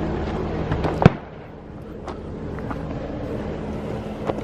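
Jeep engine idling steadily, with one loud sharp slam about a second in, the sound of a car door being shut. The engine sound is quieter after it, with a few faint clicks.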